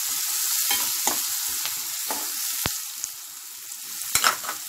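Chopped onions sizzling in hot oil in a kadai as they are sautéed until soft, with a spoon scraping and clicking against the pan several times. A louder clatter of the spoon comes about four seconds in.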